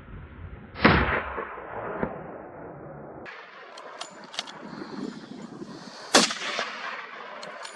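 Two gunshots from hunters' guns about five seconds apart, each followed by a rolling echo, with a fainter crack about a second after the first.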